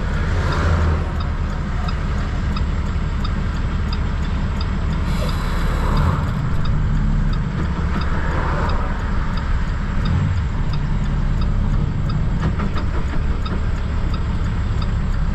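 Semi truck's diesel engine running: a steady low drone, with a faint regular ticking over it.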